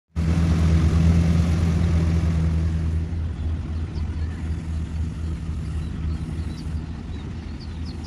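Rice combine harvester's engine running steadily with a deep, pulsing drone, loudest for the first few seconds and then a little quieter. A few faint high chirps come through over it near the end.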